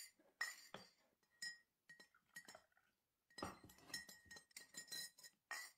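Quiet, irregular run of light glass clinks on a glass teacup, with a faint ringing tone held between them, busiest in the second half.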